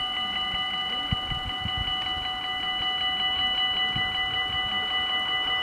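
Warning bells of a Dutch automatic level crossing ringing in a rapid, even rhythm of about five strokes a second, while the red lights show and the barriers are down: the signal that a train is approaching.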